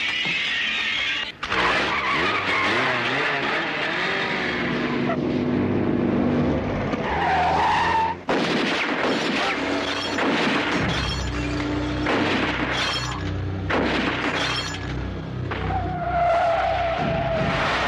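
Action-film car chase soundtrack: engines running, tyres squealing in long whines, and crashes with breaking glass. Two abrupt edits cut the sound, about a second and a half in and about eight seconds in.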